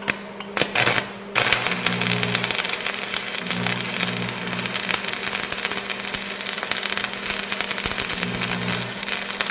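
Arc welding on a broken bicycle frame: a few sharp crackles, then steady, dense crackling from about a second and a half in, over a low hum that comes and goes.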